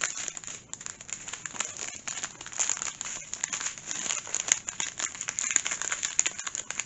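Strip of small clear plastic zip-lock bags of diamond-painting round drills crinkling and crackling as it is handled.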